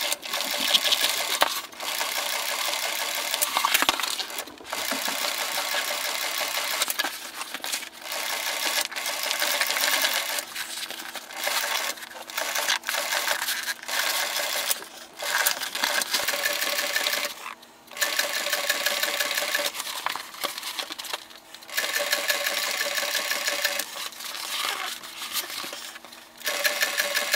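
Industrial sewing machine stitching through foam-backed vinyl linoleum flooring. It runs in stretches of a few seconds and stops briefly between them, about eight times, as the material is repositioned.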